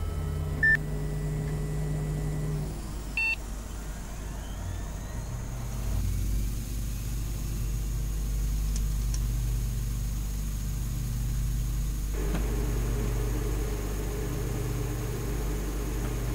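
Low, steady electronic drone of ambient sound design, shifting in layers a few times. A short beep sounds about a second in and a second, higher beep about three seconds in, and soon after a held tone slides down in pitch.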